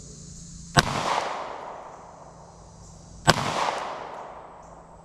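Two pistol shots from a SIG 365 XMacro TacOps 9mm, fired slowly about two and a half seconds apart. Each is a sharp crack followed by an echo that fades over about a second.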